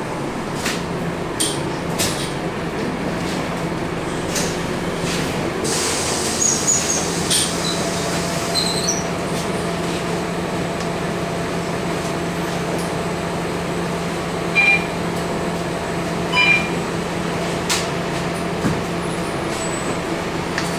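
Cabin noise of a Scania K230UB bus under way: the rear-mounted Scania DC9 diesel engine's steady drone under road and tyre noise, with interior panels clicking and rattling. Short high squeaks come in a cluster a third of the way through, and two sharper ones about two seconds apart later on stand out as the loudest sounds.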